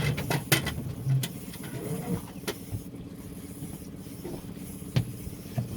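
Fishing reel being cranked while a fish is fought on the line, giving scattered mechanical clicks and handling knocks over a steady low hum.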